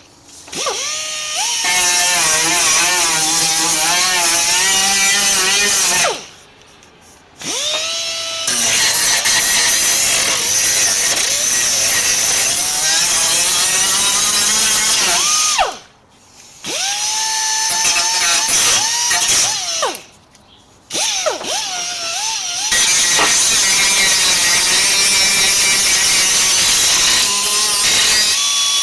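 Electric power tool running in four long bursts. Each burst opens with a rising whine as the motor spins up, runs with a wavering pitch under a harsh hiss, and stops abruptly before a short pause.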